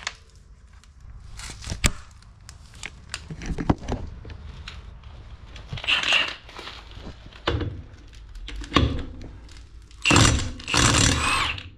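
Clicks and knocks as an impact socket is fitted and the tool handled, then, about ten seconds in, a Milwaukee M12 FUEL stubby 1/2-inch impact wrench (FHIWF12) hammering on a car wheel's lug nut for about a second and a half. There is a shorter burst of noise about six seconds in.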